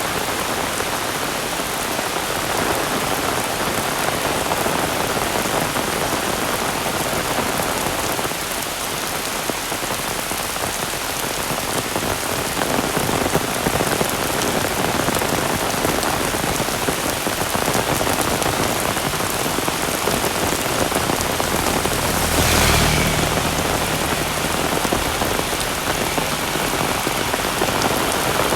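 Heavy rain falling steadily: a dense, even hiss of drops. About two-thirds of the way in there is a brief louder swell, with a low hum underneath for a few seconds.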